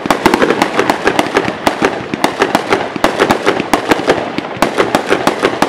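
Aerial fireworks shells bursting overhead in quick succession: a dense run of sharp bangs and crackling pops, several a second.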